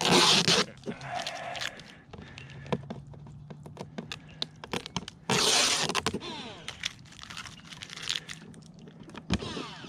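Clear tape being ripped off the hatch of a Pro Boat Zelos RC catamaran in two quick tearing pulls, at the start and about five seconds in, with small clicks and taps of the plastic hull between them.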